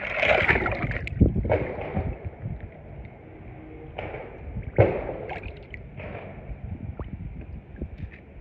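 Water splashing, sloshing and gurgling as a die-cast toy truck is pushed into a swimming pool, with a few sharper splashes, about a second in and again near the middle.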